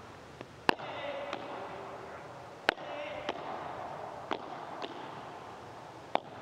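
Padel rally: the ball is struck back and forth by the players' solid paddle rackets and bounces off the court, making short sharp pops every half second to two seconds. The hardest hits come about a second in, near three seconds and near the end.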